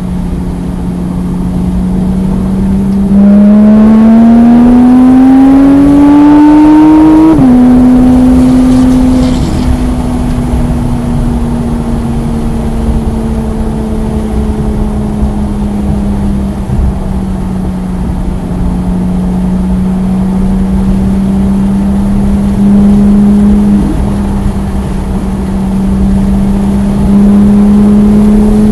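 Porsche 991.1 GT3's naturally aspirated flat-six under way on track: it pulls up in pitch for about four seconds, drops sharply at an upshift, then runs at light throttle with its pitch slowly sagging and levelling off, rising slightly again near the end.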